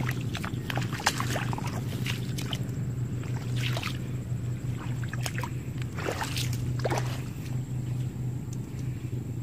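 Irregular splashing and sloshing of bare feet wading in shallow muddy water, over a steady low hum.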